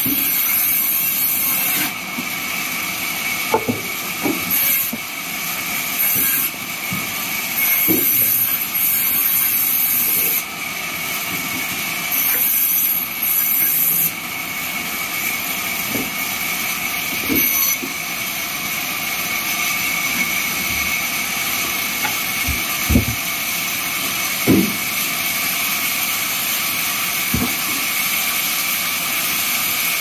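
Large vertical band saw running and cutting through a gnarled chunk of wood: a steady high whine under a hiss that swells in bursts as the blade bites. A few dull knocks sound in the second half.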